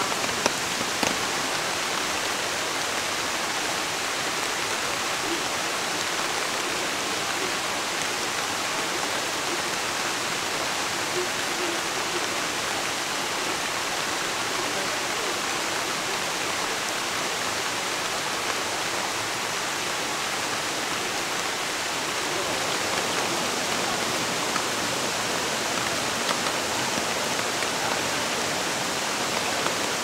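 Steady rain falling onto the surface of a shallow stream: an even hiss of many drops striking the water, with the odd single drop standing out.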